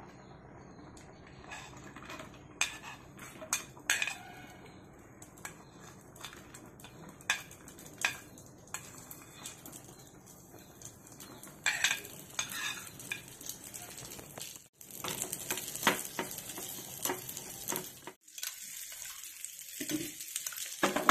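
Cashews and raisins frying in hot ghee in a small metal pan and stirred with a metal spoon: sharp clinks of spoon on plate and pan, and the ghee sizzling, strongest in the second half.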